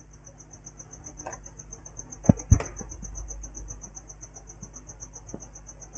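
Two light clicks a quarter of a second apart, about two seconds in, of metal tweezer tips touching the laptop motherboard's power-switch pads to try to start the board. Under them runs a steady, high, rapidly pulsing tone.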